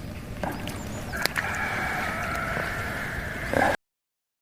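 A rooster crowing in one long drawn-out call that is cut off abruptly near the end, with a couple of sharp clicks just before it.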